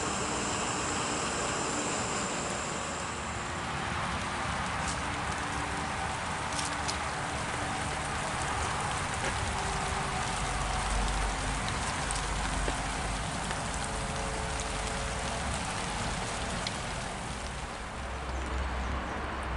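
Steady heavy rain falling, with a few low rumbles about halfway through and again near the end.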